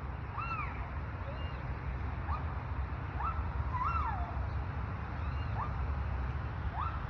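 Gibbons calling: a string of short whooping notes, most sweeping up in pitch, about one a second, over the steady rumble of freeway traffic.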